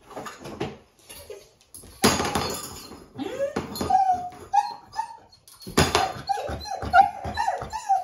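A dog whining and whimpering in short high notes that slide up and down, broken by sharp louder yips about two seconds in and again near six seconds, followed by a run of quick whines.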